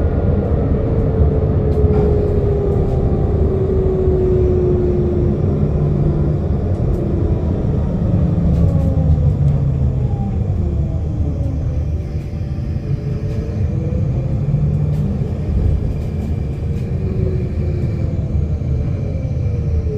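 Electric traction motor (TSA TMF 35-44-4) of a Solaris Urbino 15LE electric bus, whining in a tram-like way over a heavy low rumble of the moving bus. The whine glides down in pitch over the first few seconds as the bus slows, then rises and falls again several times with changes in speed.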